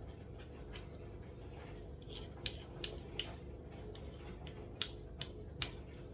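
A spoon clicking and scraping against a bowl and paper cupcake cases in short, irregular strokes as cake batter is portioned out, over a steady low hum.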